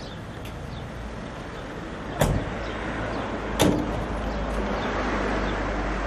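Two doors of a 4x4 crew-cab pickup slammed shut, about a second and a half apart, over the low steady hum of its engine running.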